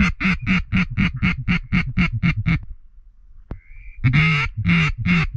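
Duck call blown hard in a fast string of about ten quacks, then a pause with a short high whistle, then another string of quacks starts, calling to ducks working the spread.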